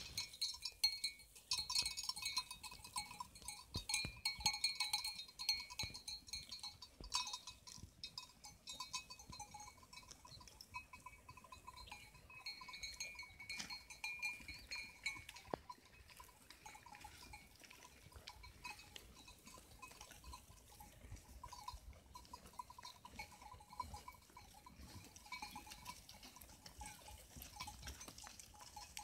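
Bells on a grazing flock of sheep clinking and tinkling irregularly as the animals move, faint, and a little louder in the first few seconds.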